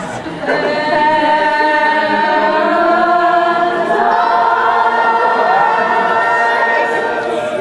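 A choir singing long held notes in harmony, the chord shifting about four seconds in.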